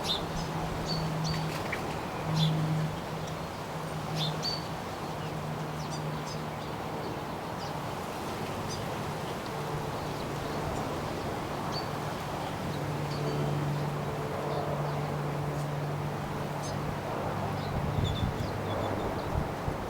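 Small backyard birds chirping in short, scattered calls over steady wind noise, with a low steady hum underneath that fades in and out.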